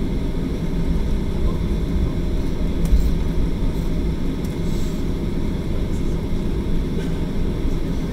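Cabin noise inside a jet airliner moving slowly on the ground: a steady low rumble of the engines and the rolling aircraft, with a couple of light knocks.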